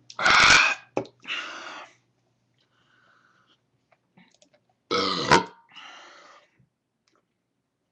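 A man burping loudly twice, right at the start and again about five seconds in, each burp followed by a quieter, shorter sound. The burps come from the gas of a 24-ounce can of beer he has just chugged.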